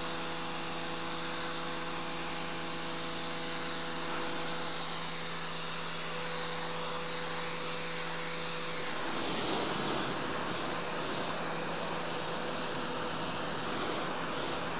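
Pressure washer spraying a jet of water onto a concrete pad: a steady hiss of the spray over the pump's steady hum. The hum weakens about nine seconds in while the hiss of the spray carries on.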